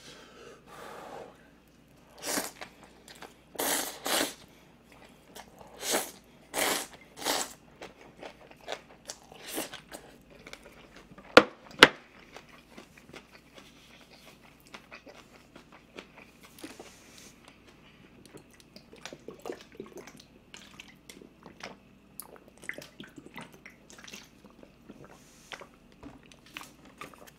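Close-miked eating of instant ramen noodles with green-onion kimchi: a run of about six loud slurps and bites in the first several seconds, two sharp clicks about halfway through, then steady small chewing sounds.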